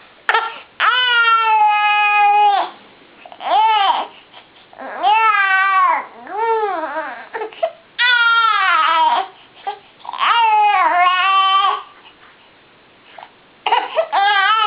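Baby crying in a string of high-pitched wails, each a second or two long with short breaths between. There is a pause of a second or two near the end before the crying starts again.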